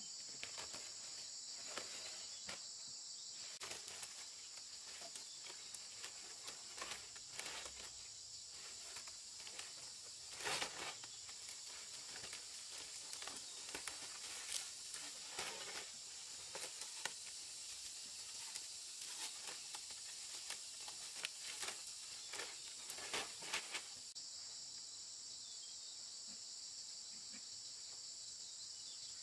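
Dry palm-leaf fronds rustling and crackling as they are handled and laid as roof thatch, in many short bursts that stop about 24 seconds in. A steady high buzz of insects runs underneath throughout.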